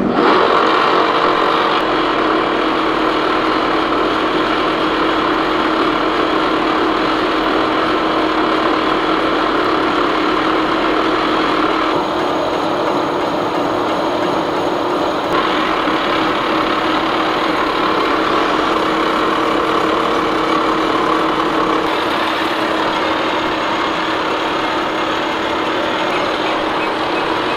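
8-inch face mill with square inserts on a Lucas horizontal boring mill, face-milling a steel angle plate. The cut starts abruptly as the cutter enters the edge and then goes on as a steady, loud machining noise with a constant ringing tone.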